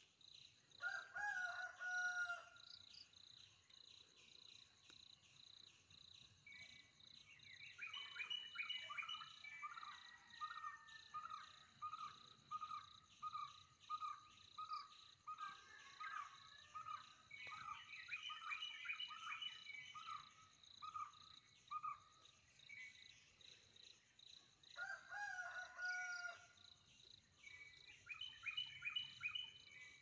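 Wild birds calling over a steady, high-pitched insect drone. Two clear calls come near the start and again near the end. In the middle, a long run of evenly repeated notes, about two a second, mixes with bursts of higher chattering.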